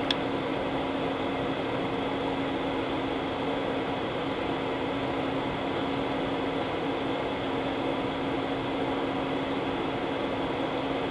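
Steady airliner cabin noise while taxiing: jet engines running at taxi power under the hiss of the cabin air, with a steady low hum, and one brief click at the very start.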